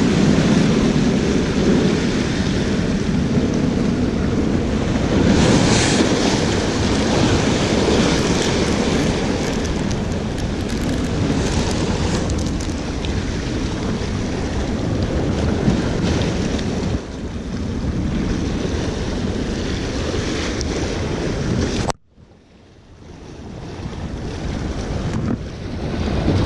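Small waves washing against the rocks of a jetty, with wind buffeting the microphone. Near the end the sound drops out suddenly, then swells back up over a few seconds.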